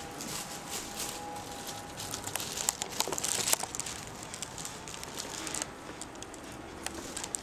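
Footsteps and light knocks on an old wooden castle floor, a run of them about two to three and a half seconds in.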